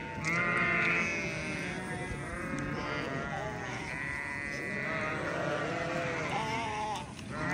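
A flock of sheep bleating, many calls overlapping without a break, with the loudest bleats near the start and again about four seconds in.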